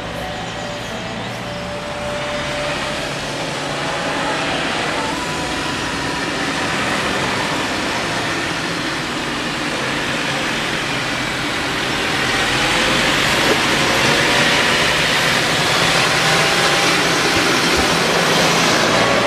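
New Holland tractor's diesel engine running as the tractor and its loaded trailer approach and drive past, growing steadily louder, with tyre noise on the wet road, loudest in the last few seconds.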